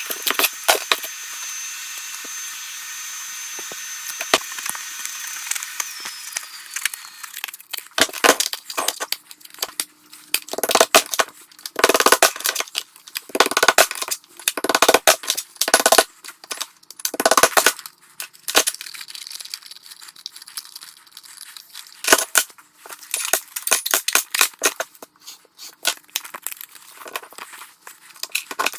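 Light hammer taps on a sheet of gasket cardboard laid over a compressor cylinder head, cutting it against the metal edge to make a new head gasket. The taps come in quick irregular runs from about eight seconds in, after a steady hiss with a high whine that dies away about six seconds in.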